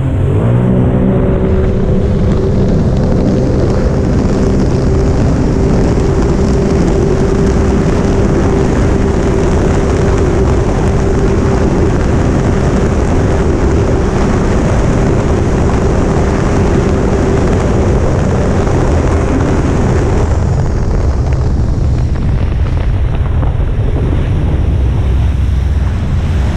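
Sea-Doo RXT-X personal watercraft running at speed: the engine note climbs in the first second, then holds steady under a loud rush of water and wind buffeting the microphone. About twenty seconds in, the engine note falls away and the water and wind noise remain.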